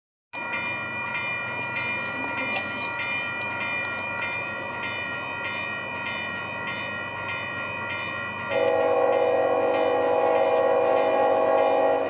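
Railroad crossing bell ringing with a steady, even pulse about every half second as a Union Pacific freight train approaches. About two-thirds of the way in, the lead locomotive's air horn sounds one long, loud blast that holds for three to four seconds.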